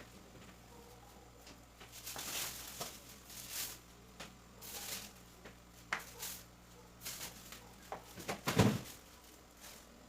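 Household items being handled: intermittent rustling and light clicks, with a louder knock about eight and a half seconds in.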